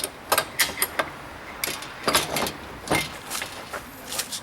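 Ratchet handle and socket clinking against a bicycle's steel parts as they are worked loose: an irregular string of sharp metallic clicks and clanks, some ringing briefly.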